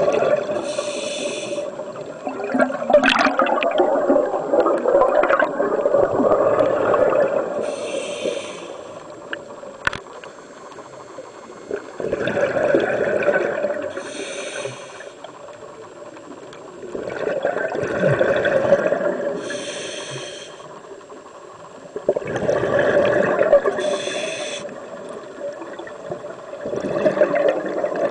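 Scuba diver breathing through a regulator underwater: a short high hiss for each inhalation, then a longer rush of bubbling exhaust, repeating about every five seconds.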